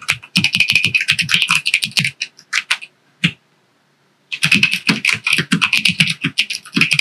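Typing on a Melgeek Mojo84, a 75% mechanical keyboard with a clear plastic case and MDA-profile keycaps: a fast run of keystrokes, a few scattered key presses, a pause of about a second, then fast typing again.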